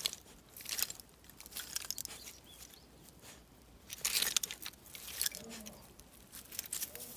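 A dog nosing and pushing soil, dry twigs and leaf litter to bury food. Irregular crunching, rustling scrapes come in short bursts, the loudest about four seconds in.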